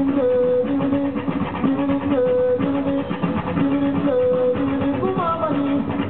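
Live band playing Malian desert blues-rock: a short guitar riff repeating about every two seconds over the band, with sliding notes coming in higher up near the end.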